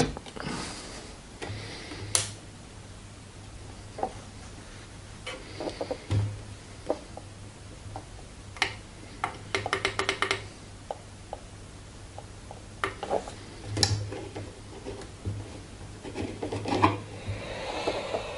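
Small tools and metal objects being picked up and set down on a workbench: scattered clicks and clinks over a steady low mains hum. Near the end a heat gun starts blowing.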